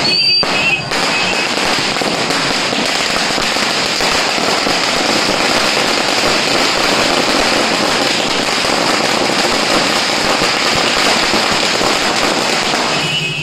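Firecrackers going off on the road in rapid succession: a loud, dense, unbroken crackle of bangs that starts about a second in and runs on for about twelve seconds.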